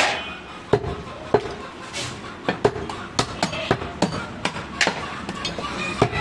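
Butcher's large chopping knife striking goat meat on a wooden block: a run of sharp, uneven chops, about two or three a second.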